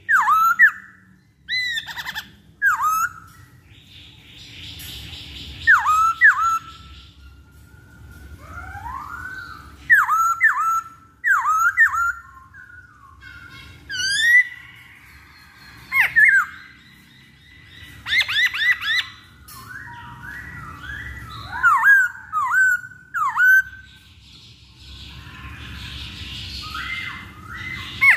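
Black-throated laughingthrush singing: loud, clear whistled notes, many falling or hooked in pitch, given in short runs of two to four with pauses between, and a couple of softer raspy passages.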